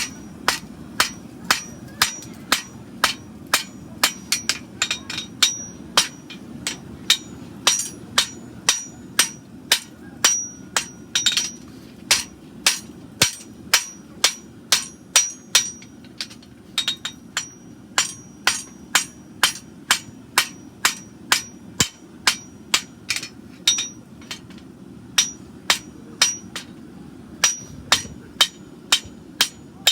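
Farrier's hammer striking a hot steel horseshoe on the anvil while forging a handmade Shire horse shoe: steady blows about two a second, each with a bright metallic ring, with a brief pause near the end.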